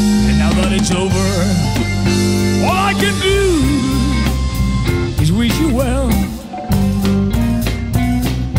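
Blues band recording: a lead line of bent, wavering notes, most likely electric guitar, over bass guitar and drums.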